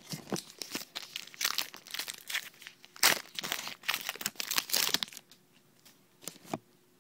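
A pack of trading cards being torn open, its wrapper crinkling in a quick run of crackly rustles that stops about five seconds in, with a couple of last crinkles shortly after.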